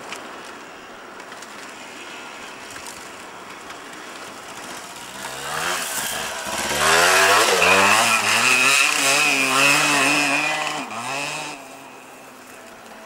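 Yamaha DT 125 two-stroke single-cylinder dirt bike ridden off-road, faint at first, then loud from about five seconds in as it comes close, revving up and down with the throttle several times before dropping away near the end.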